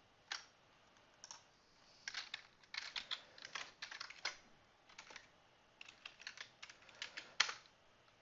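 Computer keyboard typing: a few single keystrokes, then two quick runs of keys, one about two seconds in and another near the end.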